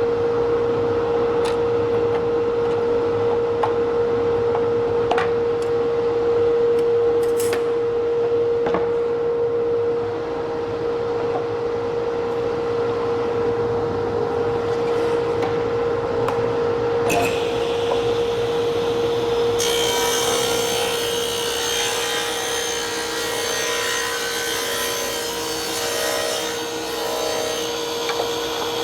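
Table saw running with a steady whine while ripping wood, with a few sharp clicks in the first half. About two-thirds of the way through, a brighter, hissier sound joins in.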